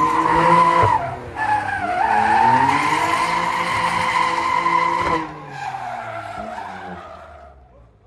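Car tyres squealing as the car skids, a loud, wavering squeal that breaks off briefly about a second in, holds strong until about five seconds, then weakens and fades out near the end.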